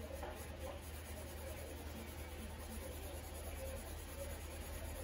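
Steady soft rubbing: natural-whetstone slurry being rubbed onto the bevel of an Edo-style usuba knife to haze it into a kasumi finish, with a low steady hum underneath.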